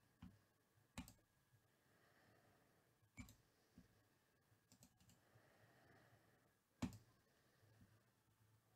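Faint, scattered clicks of a computer mouse and keyboard, a handful of single sharp clicks with the loudest near the end, against near-silent room tone.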